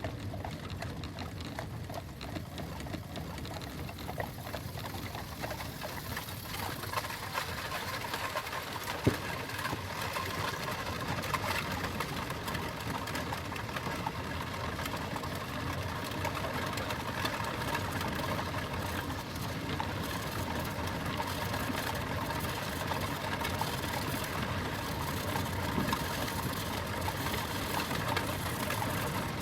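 Four-horse stagecoach on the move: a continuous clatter of hooves and the coach's wheels and harness rattling, growing louder about six seconds in, with one sharper knock a few seconds later.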